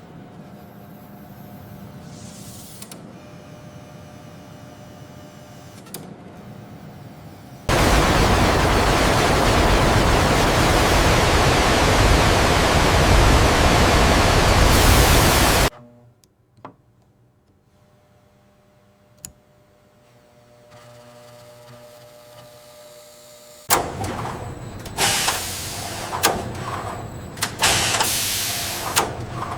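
Factory machinery sounds in changing stretches: a steady machine hum, then about eight seconds of loud, even hissing noise that cuts off abruptly, a quieter stretch with a few sharp clicks, and near the end irregular mechanical clattering and knocking.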